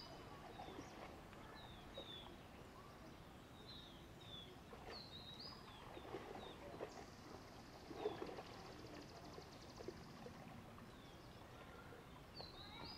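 Faint outdoor ambience with small birds chirping: short, high, quick chirps scattered every second or so, a high buzzing trill for about three seconds midway, and a soft knock about eight seconds in.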